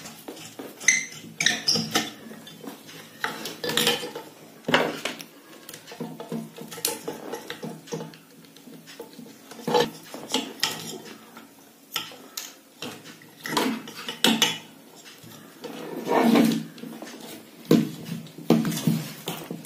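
Irregular clicks, taps and light clatter as hands handle a ceiling fan motor's metal housing, its wires and its capacitor.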